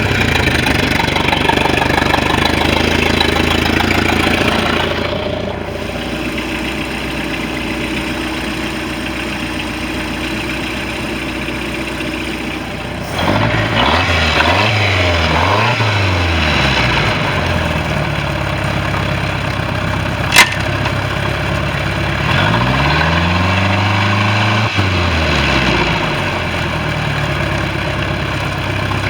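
Mercruiser 3.0 inline-four boat engine running: a fast idle that settles down about five seconds in, then revved up and back down twice. There is a single sharp click in between the two revs.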